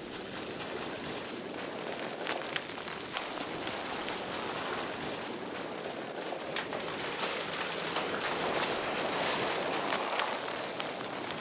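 Dense, continuous clatter of a great many small wooden planks tumbling and spilling onto a hard floor, with a few sharper knocks standing out, slowly getting louder.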